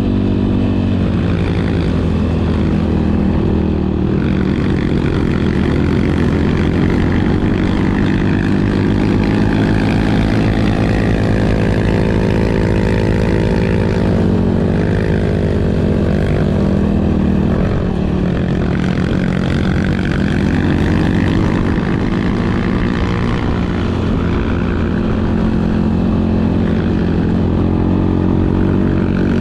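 Kawasaki KLX 150 trail motorcycle's single-cylinder engine running steadily under way on a gravel road. Its pitch slowly rises and falls with throttle and speed.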